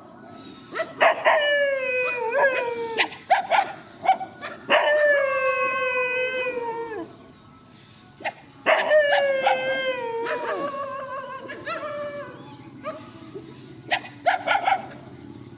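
Dogs howling: three long howls, each sliding down in pitch, with short barks and yips between them and near the end.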